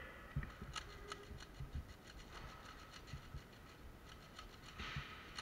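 Quiet footsteps on a concrete floor, soft thumps at irregular spacing, with rustling of clothing and gear and scattered faint ticks.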